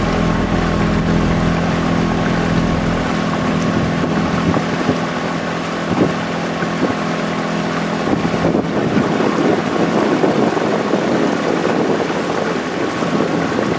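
A boat engine runs with a steady hum over the rush of water and wind on the microphone. The engine hum fades about eight seconds in, leaving the wash of water and the wind.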